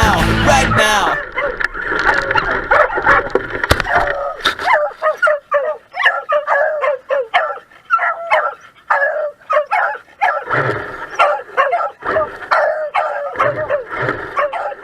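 Beagles yipping and barking excitedly in rapid, overlapping short calls, several a second. The tail of a song fades out in about the first second.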